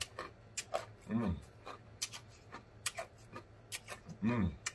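A man tasting a drink, smacking his lips in a string of sharp wet clicks, with two appreciative 'mmm' hums that rise and fall in pitch, one about a second in and one near the end.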